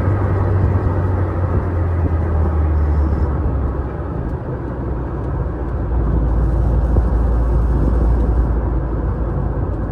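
Renault Sport Spider's 2.0-litre four-cylinder engine running as the open-cockpit car drives, with wind and road noise over it. The engine note drops lower about four to six seconds in.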